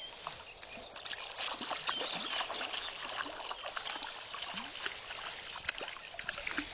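Water splashing and trickling, with many small, irregular splashes over a steady rush of moving water.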